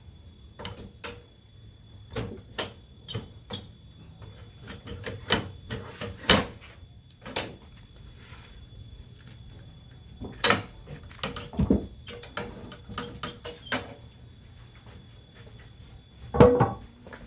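A series of irregular knocks and clacks, like hard objects being handled and set down, with several louder thumps spread through it over a faint low hum. No saw is running.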